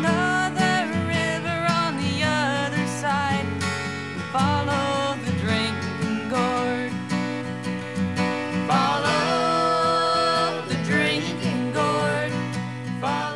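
Background music led by acoustic guitar in a country or bluegrass style, with a melody running over it, beginning to fade near the end.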